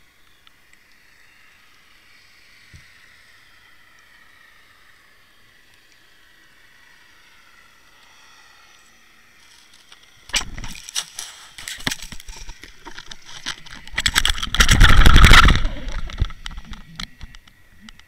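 Underwater recording from a camera housing on a fishing line. At first there is only a faint, steady water hiss. About ten seconds in come loud, rapid knocks, rattles and scraping against the housing. They build to a dense, loudest stretch a few seconds later, then thin out.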